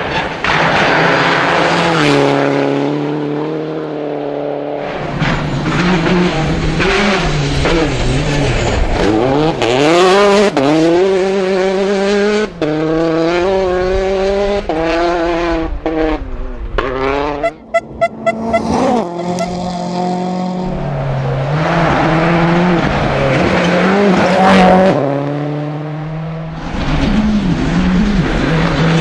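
Turbocharged rally cars driven flat out on gravel, engines revving hard and climbing and dropping in pitch through gear changes, with gravel spraying from the tyres. About seventeen seconds in comes a quick run of sharp bangs.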